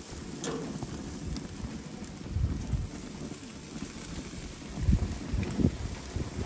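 Wind buffeting the microphone in uneven gusts, swelling about two and a half and five seconds in, over a faint steady hiss and a few light clicks.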